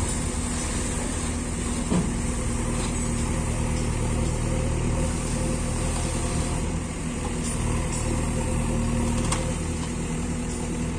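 Diesel engines of a Mahindra 585 tractor and a JCB 3DX backhoe loader running steadily under load while they work a loaded trailer out of soft ground, with a sharp knock about two seconds in.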